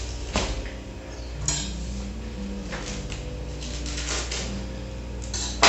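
Clinks and knocks of a knife and kitchen utensils as a paper bag of wheat flour is cut open, a few scattered taps with one sharp knock near the end.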